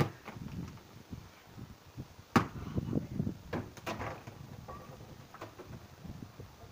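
A football being kicked and bouncing about on a paved patio: a handful of sharp knocks, the loudest about two and a half seconds in, with scuffing footsteps between them.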